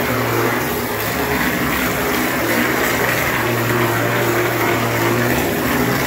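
Plaster spraying machine at work: a steady hiss of wet plaster and air jetting from the spray gun onto a wall, over a steady low machine hum.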